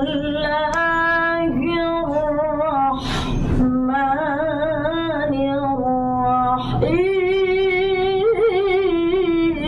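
A woman's voice chanting Quran recitation in the ornate mujawwad style. She holds long notes with ornaments and vibrato, breathes twice between phrases, and climbs to a higher phrase about seven seconds in.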